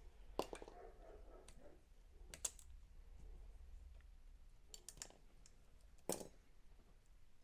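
A handful of light, sparse clicks of small steel bearing balls coming out of a power steering rack's ball-screw nut and tapping against metal, the loudest about six seconds in.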